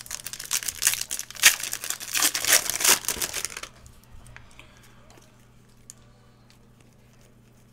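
Foil wrapper of a 2018 Panini Prizm football hobby pack being torn open and crinkled, a dense crackling that stops after about three and a half seconds. After that, only a few faint clicks of the cards being handled.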